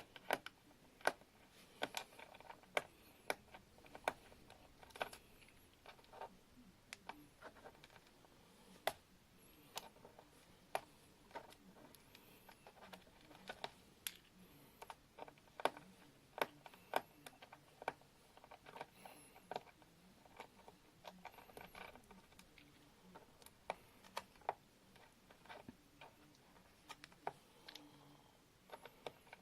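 Screwdriver working the single screw out of a Toshiba Satellite laptop's plastic maintenance hatch: faint, irregular clicks and taps, roughly one or two a second.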